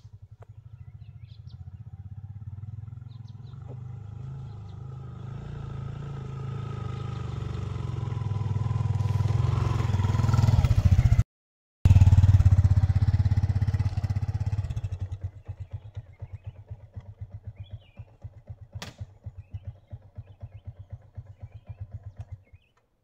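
Small motorcycle engine riding up a dirt track, growing louder as it approaches and passes close by, with a brief break in the sound about eleven seconds in. It then fades to a slow, separate putting as the bike slows and stops, and cuts out near the end.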